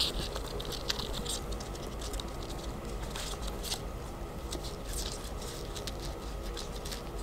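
Footsteps on grass and dry leaves moving away: irregular light rustles and ticks, loudest at the start and fading.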